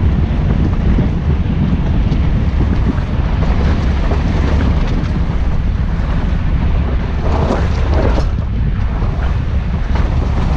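Steady wind buffeting the microphone with a loud low rumble, as from a moving vehicle.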